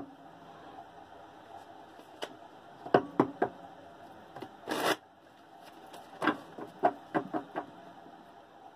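A deck of tarot cards shuffled by hand: scattered soft snaps and taps, with one longer rustle about halfway through.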